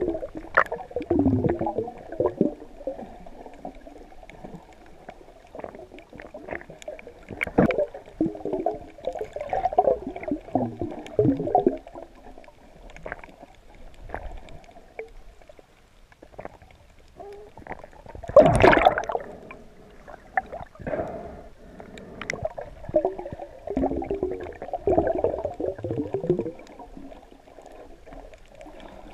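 Underwater gurgling and bubbling of water around a submerged camera, coming in irregular bursts, with one louder burst about two-thirds of the way through.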